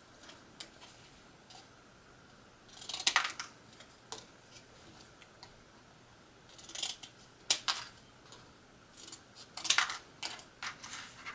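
Scissors snipping through a thin plastic yogurt container, in three short bursts of crisp cuts: about three seconds in, around seven to eight seconds in, and near the end.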